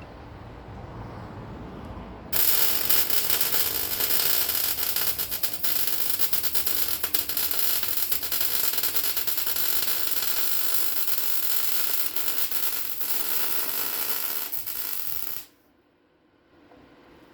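MIG welder crackling steadily as a bead is run, welding a steel front-end cross member into place; the crackle starts about two seconds in and cuts off sharply near the end.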